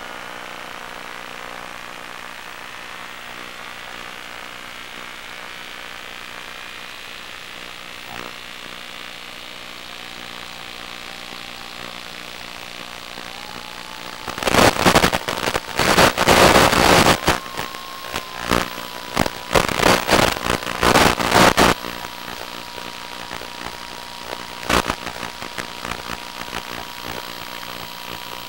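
Onboard audio of an electric FPV model airplane in flight: a steady hum with a faint rising whine, then, about halfway in, loud crackling, buffeting noise for about seven seconds as the motor is throttled up. A steady whine runs on under it, with one sharp crack near the end.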